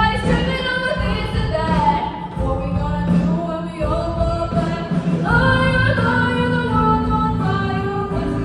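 Music with female singing over sustained low accompaniment notes; a new, higher vocal phrase comes in about five seconds in.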